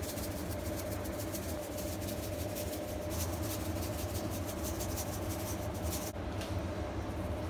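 Salt shaken from a plastic iodized-salt canister over raw deboned chicken: a quick run of fine rattling shakes that stops about six seconds in. Under it is a steady low hum.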